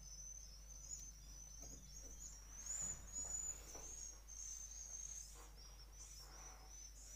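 Swiftlets twittering, a continuous high, wavering chirping, with a faint scrape of nests being worked off the wooden roosting planks about three seconds in.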